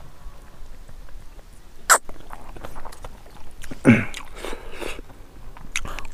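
Close-miked eating sounds: fingers squishing and kneading rice and pig trotter meat on a plate, with wet mouth clicks from chewing. A sharp click comes about two seconds in, and a short, loud mouth or throat noise about four seconds in.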